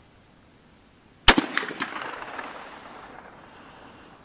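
A single shot from a Ruger GP100 .357 Magnum revolver, about a second in, sharp and loud, followed by a couple of quick echoes and a tail that fades over about two seconds.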